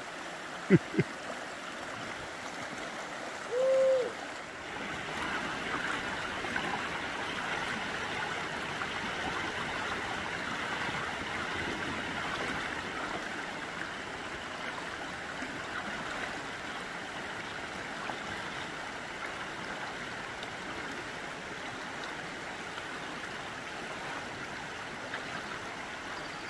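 Shallow river running over flat bedrock: a steady rush of water that grows louder about four seconds in and then holds even. Just before that, a brief hoot-like tone is the loudest sound, and there are two short clicks about a second in.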